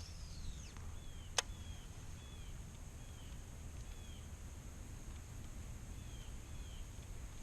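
A bird calling repeatedly with short, down-slurred chirps, over a steady high insect drone and a low rumble of wind or water. A single sharp click sounds about a second and a half in.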